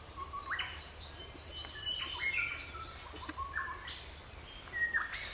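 Forest birds singing: a busy string of short, high whistled and chirped notes at many different pitches, overlapping one another, over a steady low background rumble.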